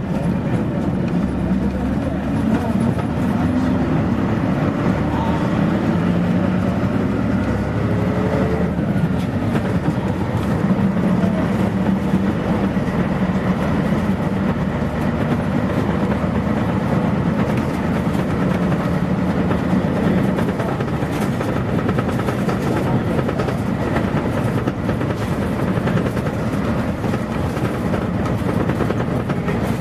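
Interior running sound of a 1989 Mitsubishi P-MP218M city bus: the diesel engine pulling under way, its note rising in pitch over the first several seconds and then holding steadier, with road noise underneath.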